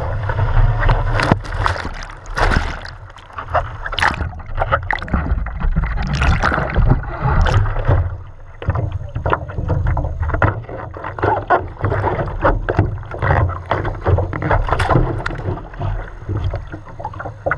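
Water splashing and rushing around a cable-towed wakeboard, heard from a camera at water level, with wind buffeting and many sharp knocks on the microphone. The noise rises and falls irregularly.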